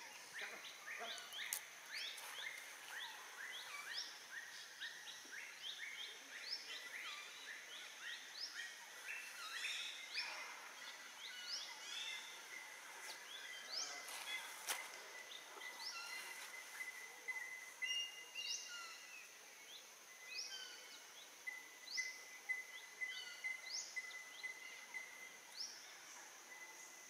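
Forest ambience: many birds giving short, rising chirps, overlapping throughout, over a steady high insect buzz. About halfway in, a thin, steady, pulsing tone joins, likely another insect.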